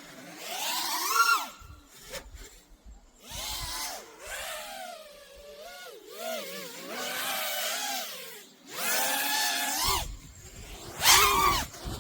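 5-inch FPV quadcopter's motors and propellers whining in bursts, the pitch rising and falling as the throttle is punched and eased, with short dips between. The loudest burst comes about eleven seconds in.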